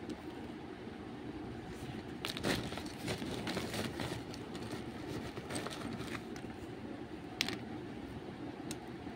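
Fingers snapping and crumbling hard, crunchy lumps of roasted nakumat and rummaging among them in a woven plastic sack: gritty crackling and small clicks, busiest about two to four seconds in, with one sharp click a little past seven seconds.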